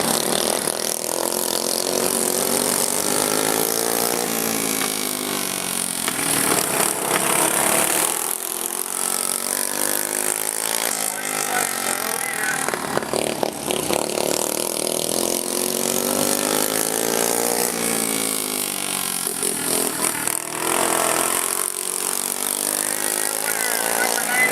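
Racing lawn mower engines running hard in a pack. Their pitch rises and falls over and over as they accelerate and pass by.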